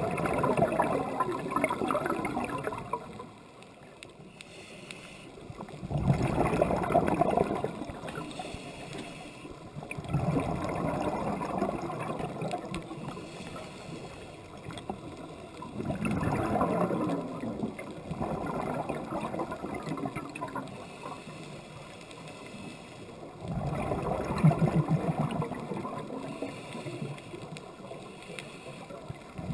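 Scuba diver's regulator exhalations recorded underwater: bursts of gurgling bubbles lasting two to three seconds, five times, every five or six seconds, with quieter stretches between breaths.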